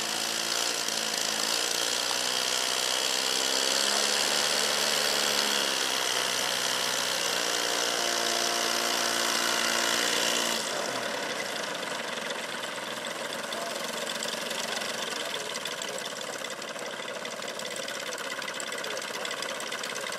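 The engine of a large scale Aviatik Berg biplane model idles as it taxis, its pitch rising and falling a little. It cuts off suddenly about ten seconds in, leaving only steady background noise.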